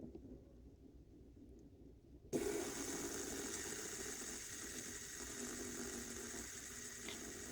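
A fidget spinner is flicked about two seconds in and spins with a steady whir from its bearing, slowly winding down.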